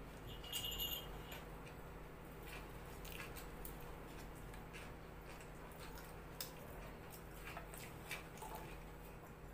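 Faint eating sounds: fingers tearing naan and dipping into rajma curry, with scattered small mouth and finger clicks. A brief ringing clink about half a second in.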